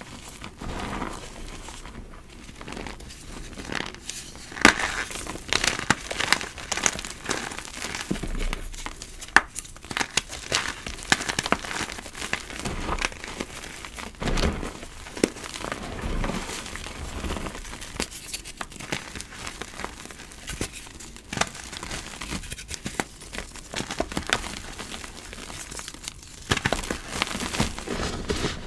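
Hands crushing and crumbling blocks of gym chalk into loose powder: irregular dry crunches and crackles over a soft powdery rubbing.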